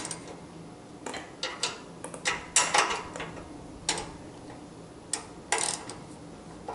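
Irregular metallic clicks and clinks, some in quick clusters, of a hand wrench working a half-inch nut on a steel mower-deck bracket as it is loosened.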